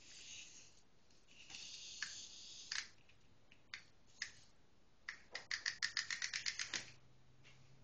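Clockwork windup toy clicking: a fast run of about ten clicks a second lasting a second and a half, after some rustling and a few single clicks.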